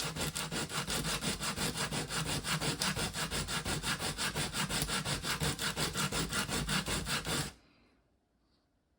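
The rotation selector from a Makita DTD152 impact driver is rubbed back and forth on sandpaper in quick, even strokes, about five a second. This is hand-sanding material off the part so that the sticky selector slides freely. The strokes stop suddenly about seven and a half seconds in.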